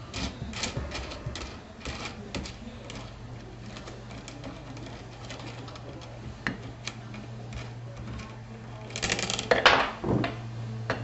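Wing nuts being unscrewed by hand from the threaded rods of an HHO dry cell: light metallic clicks and rattles, many at first and sparser later. About nine seconds in comes a louder burst of metal clinking.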